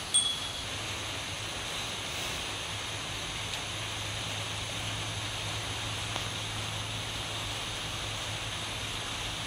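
Steady rain falling, an even hiss of noise throughout, with a single short high ding near the start.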